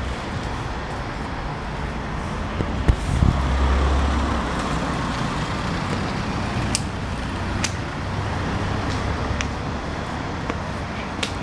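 Street traffic: a steady hum of vehicles, with a louder low rumble of one passing vehicle about three to five seconds in and a few short sharp clicks.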